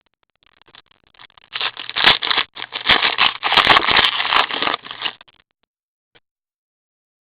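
A trading card pack's wrapper crinkling and tearing as it is opened by hand, a dense crackling rustle for about three and a half seconds that stops shortly after the middle.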